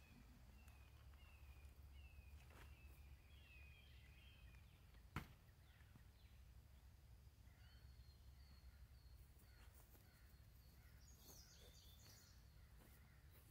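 Faint outdoor ambience: small birds chirping in short repeated calls over a low steady rumble, with one sharp click about five seconds in.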